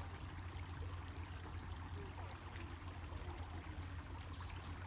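Faint trickling of a shallow creek, with a bird chirping a quick series of short, falling notes about three seconds in.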